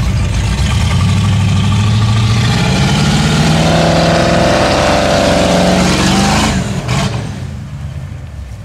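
A lifted Ford Bronco's engine revving hard under load as the truck pushes into trees. The pitch climbs steadily for several seconds, then the throttle comes off sharply near the end and the engine drops back to a lower run.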